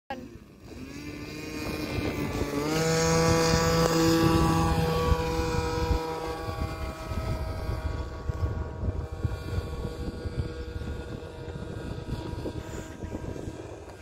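O.S. LA .46 two-stroke glow engine of a model aircraft in flight, a high buzzing drone. Its pitch rises sharply about two and a half seconds in and it is loudest over the next few seconds, then it fades and drops a little in pitch as the plane moves away.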